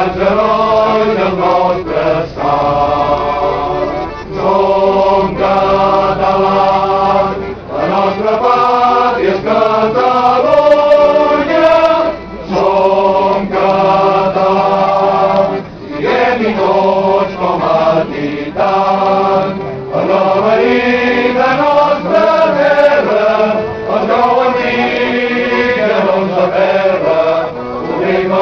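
A choir singing a song in Catalan, in sung phrases of about four seconds with brief breaks between.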